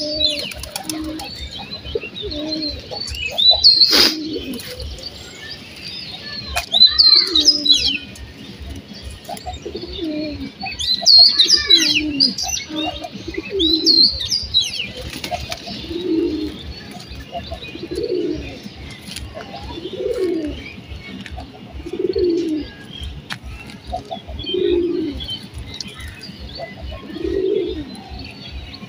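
Domestic pigeons cooing, a low coo about every two seconds and steadier in the second half. High, quick chirps of other birds sound over the coos in the first half.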